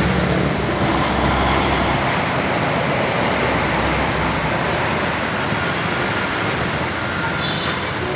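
Strong wind blowing in a loud, steady rush with a deep rumble, easing slightly toward the end.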